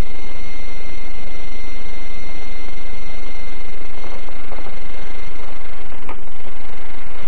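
Steady hiss and hum from the soundtrack of a 16mm sound film, with no dialogue, carrying a thin steady high whine and a single click about six seconds in.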